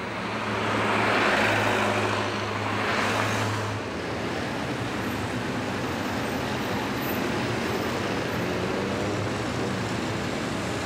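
City street traffic: a steady wash of road noise, with a vehicle's engine drone swelling and passing in the first few seconds.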